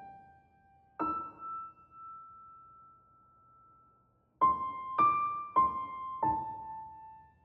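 Slow, sparse piano music: a single note about a second in, then four notes struck about half a second apart, each left to ring and fade out.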